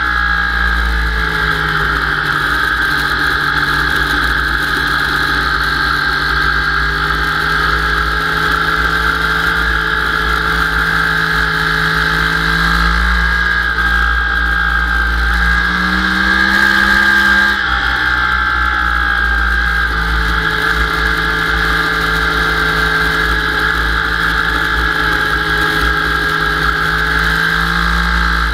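Yamaha R1 sport bike's inline-four engine, heard from on board, running hard at steady high revs at track speed. About two thirds of the way through the pitch climbs for a second or so, then drops suddenly.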